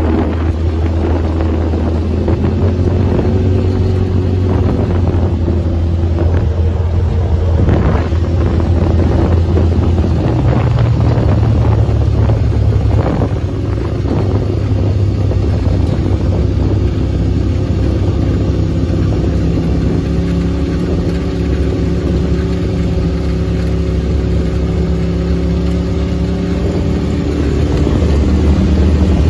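Side-by-side UTV engine running under way on a dirt track, heard from inside the open cab with wind noise on the microphone. The engine note rises and falls with speed, and there are a couple of short knocks about a quarter and nearly halfway through.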